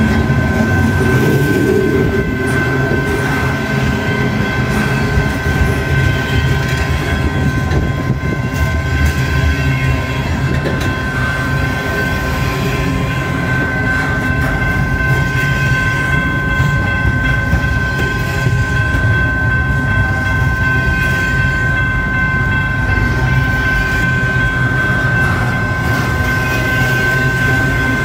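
Norfolk Southern manifest freight train's cars rolling past at close range: a loud, steady rumble of wheels on rail with clicking over the rail joints, and a steady high tone held over it.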